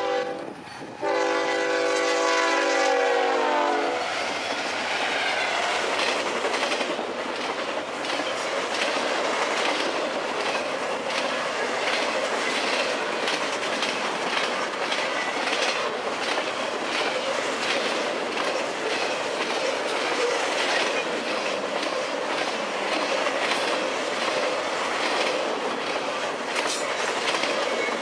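Union Pacific freight locomotive's multi-tone air horn sounds twice, a short blast and then a long one that drops in pitch as the locomotives pass. Then the double-stack container cars roll by with a steady rolling noise and the clickety-clack of wheels over rail joints.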